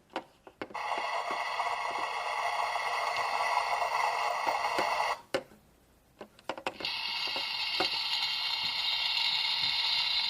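Minnie Mouse Bowtastic toy kitchen playing recorded sound effects through its small speaker: a steady sizzling hiss from the burner for about four and a half seconds, then after a few plastic clicks a second, higher hissing effect for about four seconds.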